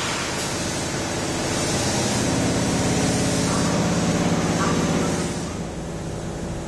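A Tobu Spacia limited express car's sliding passenger door opening at the platform with a rush of air and a low steady hum. It is the same sound as Tobu's 8000 series commuter trains.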